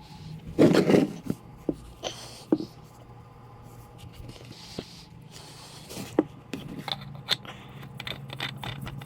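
Scrapes and scattered light clicks of a new spin-on oil filter being handled and threaded on by hand, its gasket freshly oiled. The loudest scrape comes about a second in, over a faint steady low hum.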